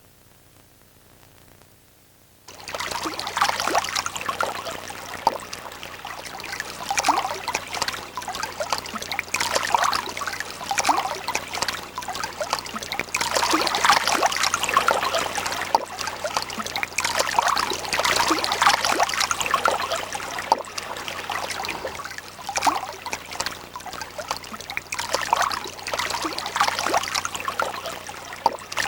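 Running water, trickling and splashing like a stream, starting about two and a half seconds in after a near-quiet moment. A faint steady low hum lies underneath.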